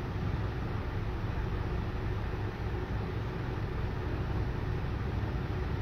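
Steady background noise: a low hum with hiss above it, unchanging, with no distinct sounds standing out.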